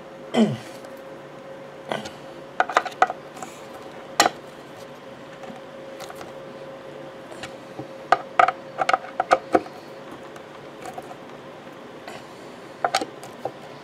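Small metal parts clinking and tapping as they are handled. The clicks come in scattered clusters, a few seconds apart, over a steady hum.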